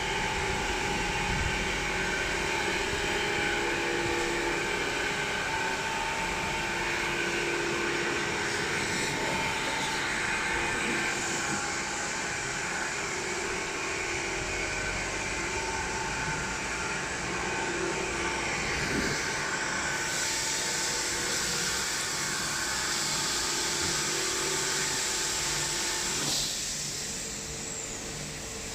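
Christ Varius gantry car wash running, a steady mechanical hum with a few held tones from its motors. About 20 s in a hiss of spraying joins it, and about 26 s in the sound changes and drops a little.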